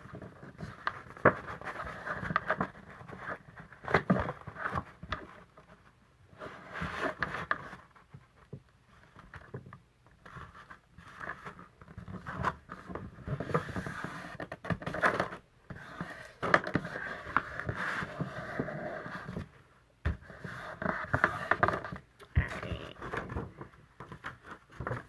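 Cardstock being handled and folded by hand: irregular rustling, scraping and sharp creasing sounds of paper sliding and being pressed flat on a work surface.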